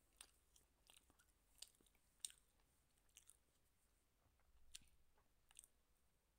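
Faint, scattered mouth clicks and smacks of a toddler chewing small pieces of parotta.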